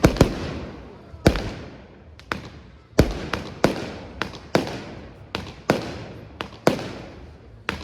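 Aerial fireworks shells bursting in quick, irregular succession: a dozen or so sharp bangs, each trailing off in an echoing rumble.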